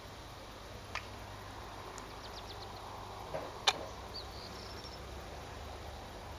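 Quiet outdoor evening ambience with a steady faint hiss and low rumble, broken by small bird calls: a quick run of high ticks about two seconds in and a short high whistle just past the middle. Two sharp clicks stand out, the louder one just before the whistle.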